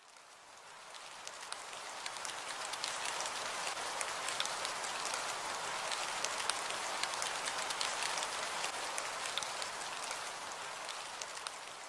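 Steady rain hiss dotted with the ticks of single drops, fading in at the start and out at the end.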